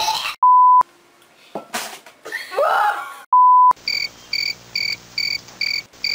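Two short, loud censor bleeps about three seconds apart, with a voice between them. Then a high electronic beeping starts suddenly and pulses about three times a second over a low hum.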